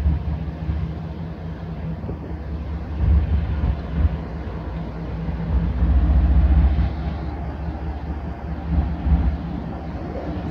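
Diesel freight locomotives approaching slowly, their engines giving a steady low drone.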